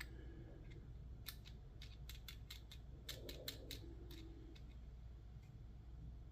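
Faint run of about a dozen small sharp clicks over about two and a half seconds, from tools working on a Federal 200A padlock as it is taken apart to reach a long screw.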